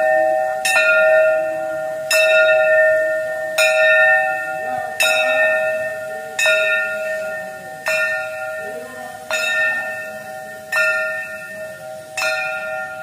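Temple bell rung during aarti, struck at a steady pace about once every second and a half, each stroke ringing on into the next.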